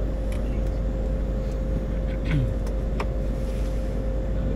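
Cockpit noise of a Gulfstream G150 business jet with its twin Honeywell TFE731 turbofans running: a steady rumble with a steady hum over it, and a few faint clicks.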